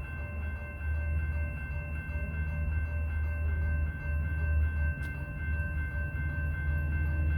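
Railroad crossing's electronic bell ringing steadily over a deep, continuous rumble from a Metrolink commuter train.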